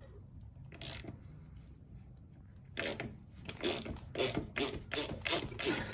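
Ratchet wrench clicking on the rear sprocket's nuts: one short click about a second in, then quick back-and-forth strokes, about three a second, from halfway through.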